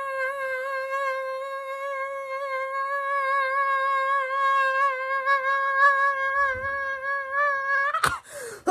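A woman singing one long held note with a slight vibrato, breaking off about eight seconds in.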